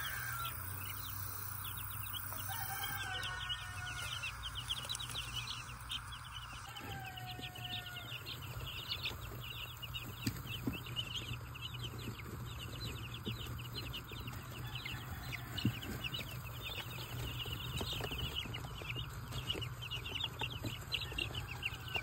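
A brood of five-day-old Cornish Cross meat chicks peeping: many short, high chirps overlapping, growing denser a few seconds in.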